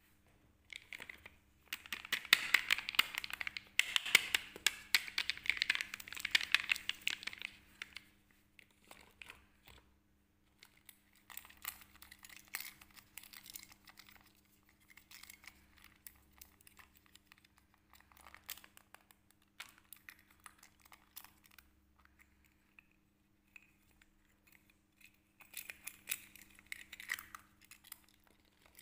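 Hands handling plastic candy packaging and small hard-plastic toys: a stretch of dense crinkling and rustling a couple of seconds in, then scattered light plastic clicks and rustles, and another short burst of crinkling near the end.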